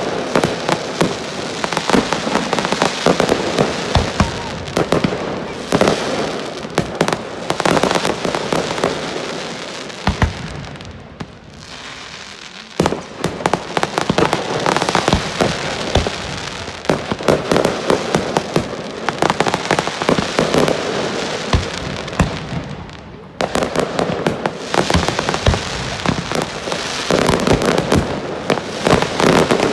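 Fireworks display: dense volleys of crackling and bangs. They ease off about ten seconds in, restart with a sharp burst about thirteen seconds in, and ease off again and restart once more at about twenty-three seconds.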